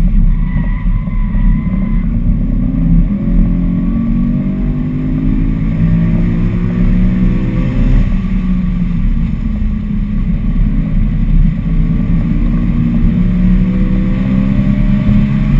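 BMW E92 M3's 4.0-litre V8 heard from inside the cabin under hard acceleration on track, over a steady low road rumble. The engine note climbs for about five seconds, drops at an upshift about halfway through, then climbs again.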